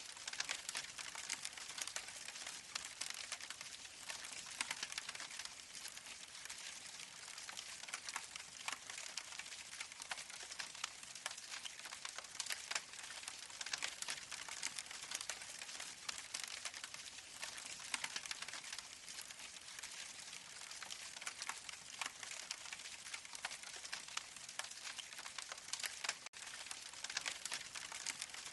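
Recorded campfire crackling from a player module through the artificial fireplace's small 2 W speaker: a steady hiss dotted with many small pops and snaps.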